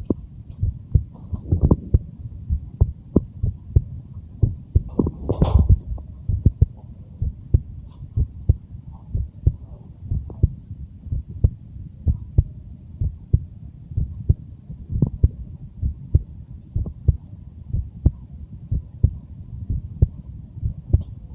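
A 23-year-old's heart beating, heard close up as a steady run of low, regular thumps, roughly one beat a second. About five seconds in there is a single louder scuff.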